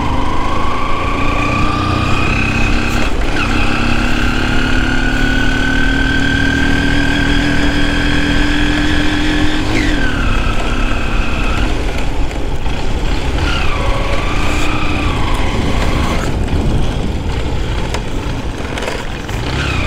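Motorcycle engine pulling up a hill, its note climbing slowly and then dropping sharply twice, about ten and thirteen seconds in, with wind rumbling on the helmet-mounted microphone throughout.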